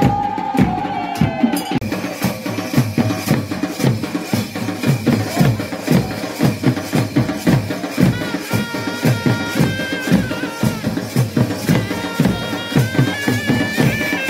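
Traditional drums played in a fast, dense rhythm, with higher held tones joining in over the second half.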